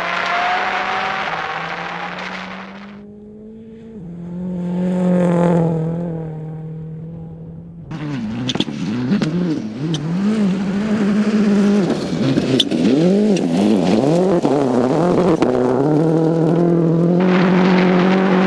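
Ford Focus WRC rally car's turbocharged four-cylinder engine working hard on loose gravel, its revs climbing and dropping again and again as it accelerates and shifts through a slide. Near the end it is heard from inside the car as a steadier engine note.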